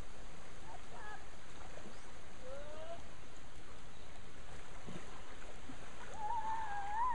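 Steady rush of creek water flowing around a floating inner tube. A faint wavering call comes in near the end.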